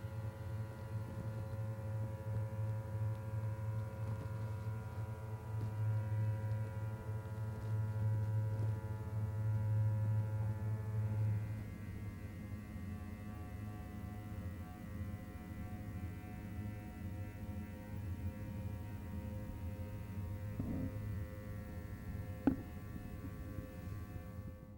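Steady electrical hum of neon tubes and their transformers: a low buzz with several held higher tones, shifting in character about halfway through. A single sharp click near the end.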